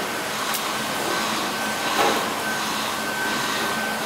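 Steady, even background noise of a busy market, with a faint thin high tone that comes and goes and a soft knock about two seconds in.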